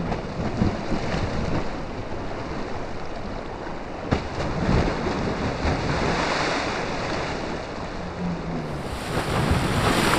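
Fast-flowing muddy floodwater of the Chenab river rushing and lapping against an eroding earth bank, with wind on the microphone. About halfway through, a chunk of the bank breaks off and splashes into the current.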